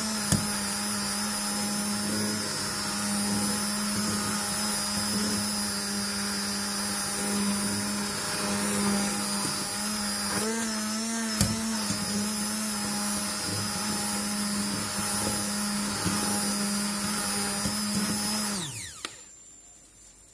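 Hand-held immersion blender running steadily, its motor whine blending béchamel sauce in a saucepan, with two sharp knocks. The pitch wavers briefly about halfway, and near the end the blender is switched off and its motor spins down.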